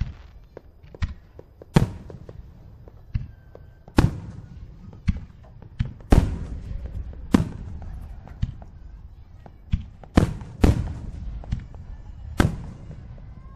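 Fireworks display: aerial shells bursting with about a dozen sharp bangs at irregular intervals, each trailing off in a short echo.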